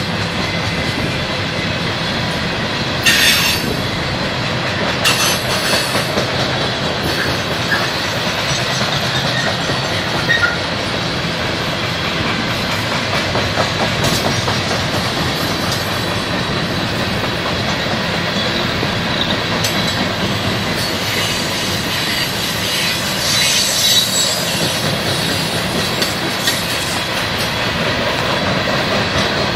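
Freight train of steel-coil flatcars rolling past: a steady rumble and clatter of wheels on rail, with a few brief high screeches of wheel squeal about three and five seconds in and again around twenty-four seconds.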